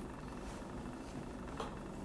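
Steady low room noise with one faint tap about one and a half seconds in, from hands handling a plaster-filled silicone mould on a table.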